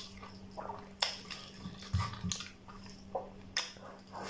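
Close-up eating sounds of rice and mutton curry eaten by hand: wet squishing of fingers in the food and a few sharp lip smacks while chewing. A faint steady hum runs underneath.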